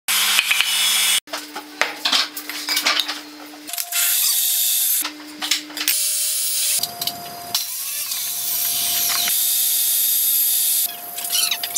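Woodworking layout sounds in short edited clips: wood blocks handled on the bench and a pencil scratching marking lines on the wood. Under them runs a steady hum that changes pitch abruptly at each cut.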